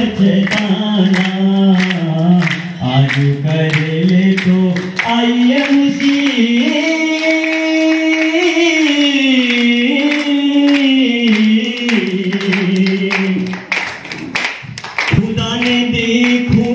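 A man singing a Hindi song into a microphone over a PA, drawing out long held notes that rise and fall, with a brief break near the end.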